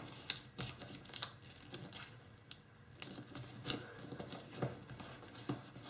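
Sheet of origami tissue foil being folded and pressed flat by hand: faint, irregular crinkles and ticks as the layers are handled and creased.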